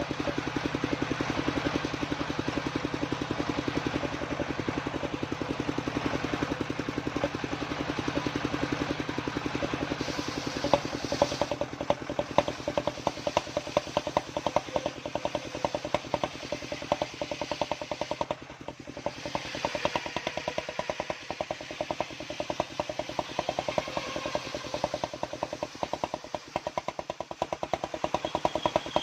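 Homemade circular saw rig running with a fast, even engine-like beat. From about ten seconds in it turns harsher, with louder sharp knocks, and it dips briefly a little past the middle.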